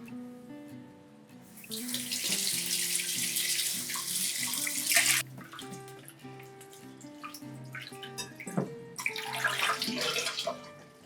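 Water running from a tap into a sink in two spells, the first cut off suddenly after about three seconds and the second starting near the end, over soft background music with plucked notes.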